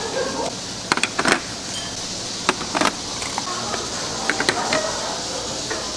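Kitchen work: sharp knocks and clinks of utensils against bowls and pots, a few at a time, over a steady hiss.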